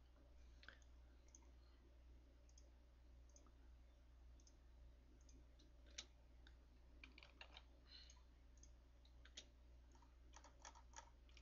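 Near silence with faint, scattered clicks of a computer mouse, irregular and mostly in the second half, over a low steady hum.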